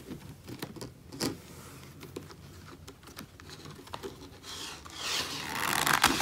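Cardboard and paper handling of a spiral-bound desk calendar: scattered light taps and clicks, then a louder rustling, scraping sound building over the last couple of seconds as the cover sheet is flipped back over the spiral binding.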